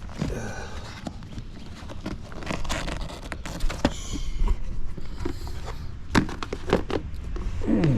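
Paper service manuals and their cardboard boxes being handled: rustling and sliding of paper with a series of irregular knocks and clicks.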